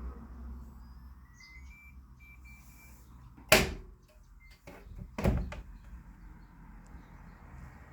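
Samsung washing machine: faint electronic beeps over a low hum, then two loud clunks about two seconds apart, most likely its loading door being opened and shut.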